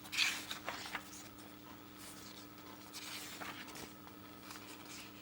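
Pages of a large paper booklet being handled and turned: a brief, sharp rustle just after the start, another near the one-second mark, and softer rustling a few seconds in, over a faint steady hum.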